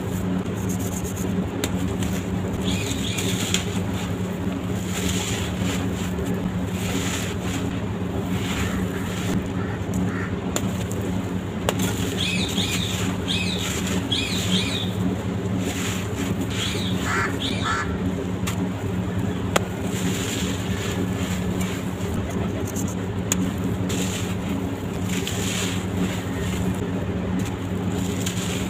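Dry sand-cement blocks being crumbled: continuous gritty crunching with scattered sharp cracks, over a steady low hum.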